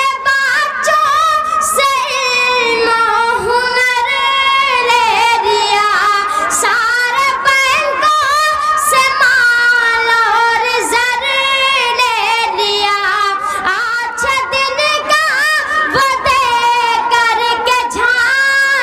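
A boy singing unaccompanied into a microphone over a public-address system, a long melodic line of held notes that waver in pitch, broken by short breaths.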